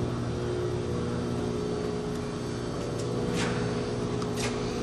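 Steady electric-motor hum from the vertical baler's 10 horsepower motor and hydraulic power pack running, with a couple of brief faint hisses in the second half.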